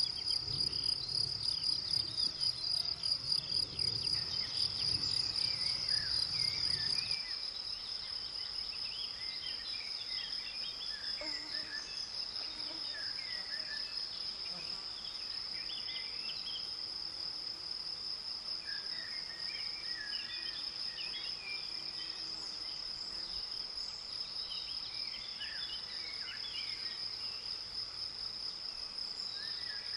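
Meadow insects stridulating in a continuous high-pitched buzz. For the first seven or so seconds a low rumble runs under it and then cuts off suddenly; after that, short faint chirps are scattered over the buzz.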